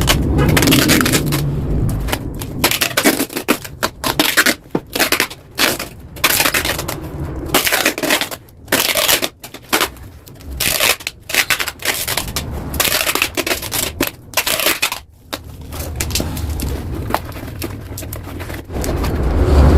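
Metalworking on a motorcycle exhaust muffler: loud, harsh, crackly noise in irregular bursts, starting and stopping every second or so, with a few sharp clicks.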